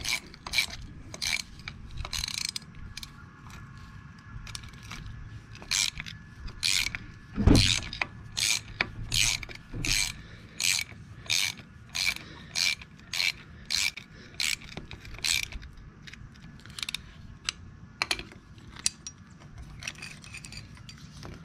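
Hand ratchet wrench clicking in short back-and-forth strokes, about two strokes a second at its busiest, as a greased nylon lock nut is run down a thread. A single dull knock comes about a third of the way through.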